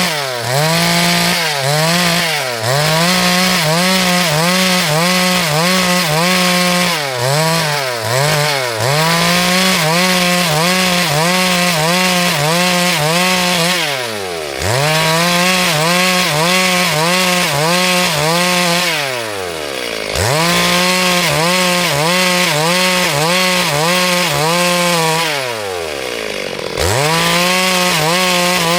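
Two-stroke chainsaw cutting wood at full throttle, its engine note dipping and recovering again and again as the chain bites into the log. Three times, about halfway, two-thirds of the way and near the end, the revs fall off and then climb back up to full speed.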